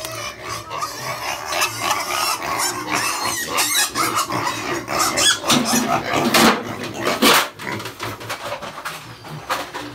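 Piglets squealing and grunting, an irregular run of cries that is loudest about six to seven seconds in.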